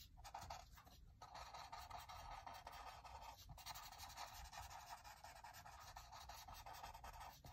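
Paper tortillon (blending stump) rubbed in small circles over graphite on watercolor paper, blending the shading. It makes a faint, steady scratchy rubbing with a few brief breaks where the stump lifts.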